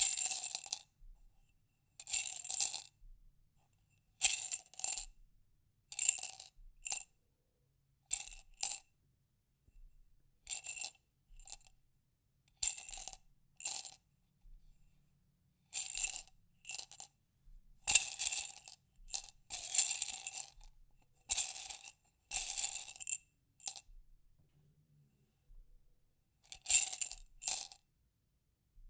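Small hard objects clinking and rattling inside a glass jar as it is shaken, in short separate shakes every second or two with pauses between them.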